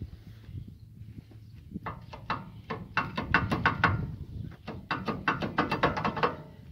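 Quick runs of sharp metal clicks, several a second, coming in two main bursts, from hand-tool work on a ZIL truck's wheel hub as it is being taken apart.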